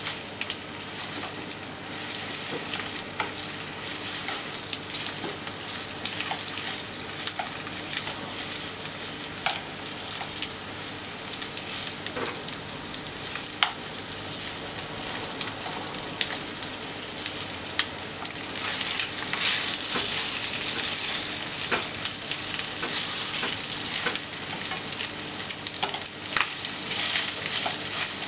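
Chicken thigh pieces sizzling and frying in a nonstick frying pan while being stirred and turned with wooden chopsticks, with occasional sharp clicks as the chopsticks knock the pan. The sizzle grows louder about two-thirds of the way through.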